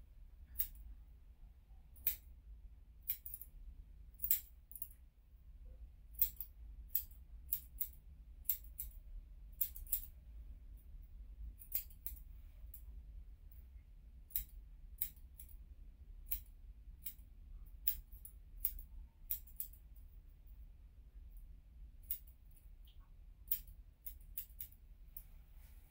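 Sharp metal snips of a hand-held grooming cutter working at a Yorkshire terrier's paws, about one snip a second at an uneven pace with short pauses.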